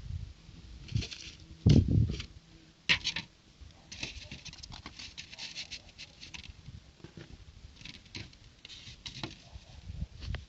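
Small plastic building bricks being handled: scattered clicking and rustling as pieces are sorted and pressed together, with a couple of louder knocks about two and three seconds in.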